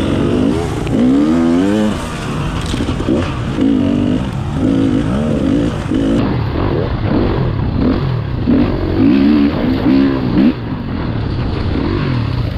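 Dirt bike engine revving up and down over and over as the rider works the throttle along the trail, the pitch climbing and falling back about once a second.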